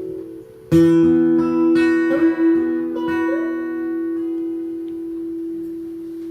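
Closing chord of a song on acoustic guitar, struck about a second in and left to ring out slowly, with a few more notes picked over it.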